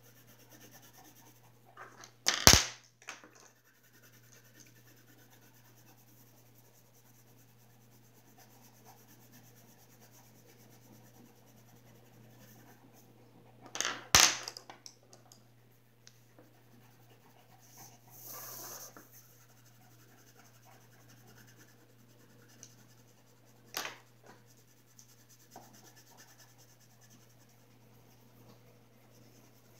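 Faint scratching of a colouring pencil on paper, broken by a few sharp knocks: the loudest about two seconds in, others about 14 and 24 seconds in.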